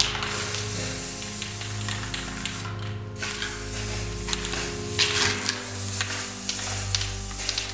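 Paint spray hissing in two long bursts, with a short break just under three seconds in, over background music.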